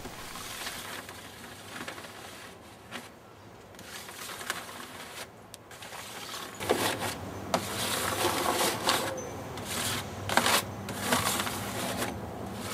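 Irregular handling and work noises: short scrapes, rustles and clicks, busier and louder in the second half.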